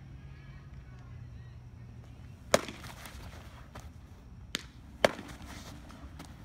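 Baseball smacking into leather gloves in a catcher's pop-time drill: three sharp pops, the loudest about two and a half seconds in and two more around four and a half and five seconds in. A low steady hum runs under the first half.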